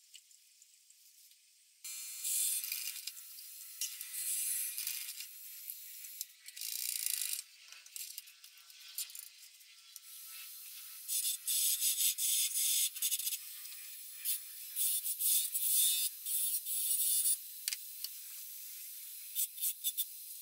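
Lathe turning tool cutting a spinning wooden handle: scraping, hissing passes of a second or more, starting about two seconds in and coming in a close run of cuts in the second half.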